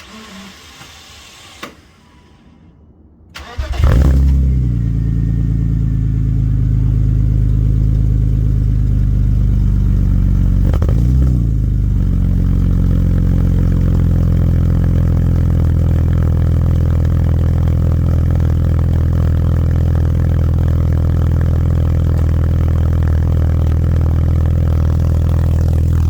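BMW E36 engine cranking and catching about three and a half seconds in, then idling steadily through a new cat-back exhaust with a catless mid-pipe: a quiet, low purr. One brief blip of revs rises and falls about eleven seconds in.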